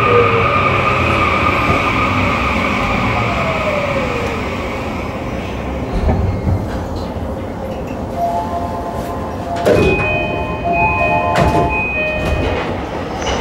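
Yamanote Line E235 series train with a Toshiba SiC-VVVF inverter slowing down, its inverter tones falling in pitch as it brakes. From about eight seconds in come short beeping tones at several pitches and a few knocks.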